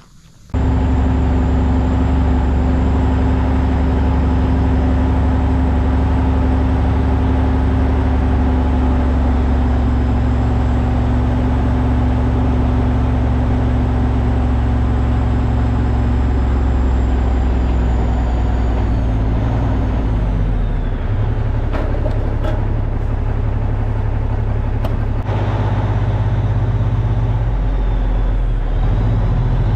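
Semi truck's diesel engine running while driving, a loud steady drone that starts abruptly about half a second in. Its pitch shifts about twenty and again about twenty-five seconds in.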